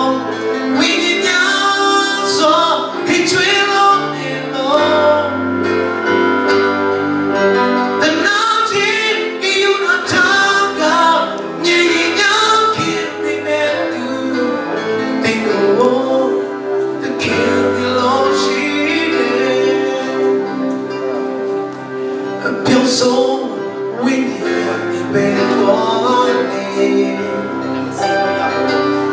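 A man singing a gospel song into a microphone over instrumental accompaniment, amplified through a PA.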